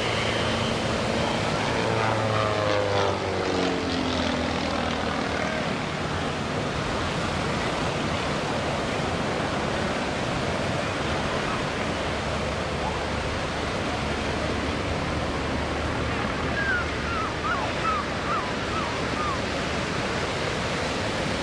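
Pitts aerobatic biplane's piston engine and propeller droning through the aerobatic routine, over a steady rush of surf and wind; about two to four seconds in, the engine note falls in pitch. A few short high chirps come near the end.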